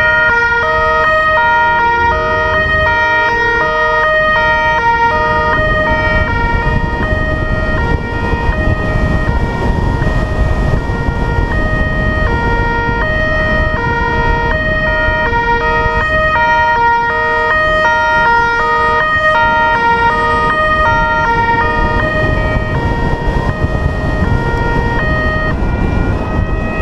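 Italian two-tone police siren on a patrol car, alternating steadily between a low and a high note. Engine and road noise run underneath.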